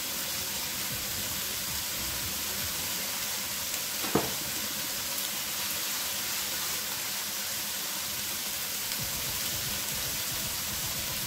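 Smoked pork belly cubes frying with a steady sizzle in an enamelled cast-iron casserole as they start to brown and render their fat.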